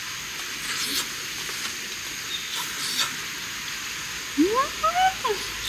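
Egg-battered beef slices (yukjeon) sizzling as they fry in a pan on a camp gas stove, a steady hiss with a few light clicks. About four seconds in, a few short squeaky sounds glide up and down.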